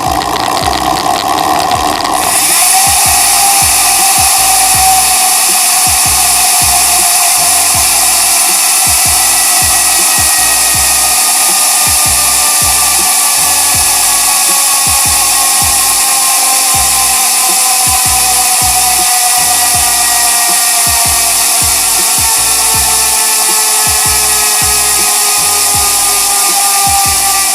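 Sagmit M120 six-pawl, 120-engagement freehub ratchet buzzing loudly as the spun rear wheel coasts. Its pitch slides slowly downward as the wheel slows. The sound changes sharply about two seconds in, as the freewheeling begins.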